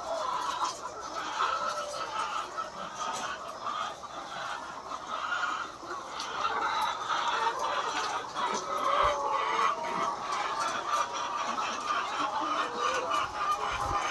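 A large flock of egg-laying hens clucking and calling all at once, a dense chatter of many overlapping birds.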